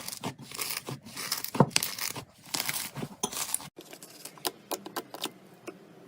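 Slime being squished and stretched by hand: a dense run of sticky crackles, clicks and pops. A little over halfway through the sound cuts abruptly to a quieter stretch with sparser clicks.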